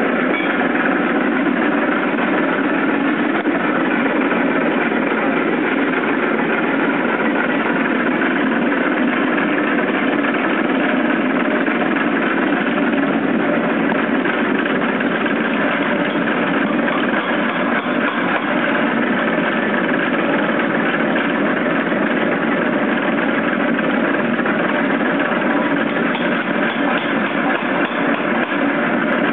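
A 250 lb Nazel air power hammer running: a loud, steady mechanical din that holds unchanged, with no separate blows standing out.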